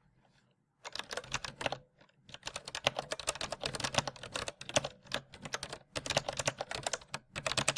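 Ratchet wrench clicking rapidly in several bursts a second or so long, with short pauses between them, as bolts are worked loose.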